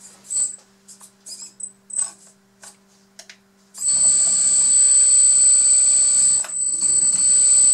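Hydraulic pump of a Huina K336 RC hydraulic excavator whining as the excavator is worked from the transmitter. A few short high chirps come first, then from about four seconds in a loud, steady, high-pitched whine with one brief dip near the end. The pump is set to speed up in proportion to the joystick.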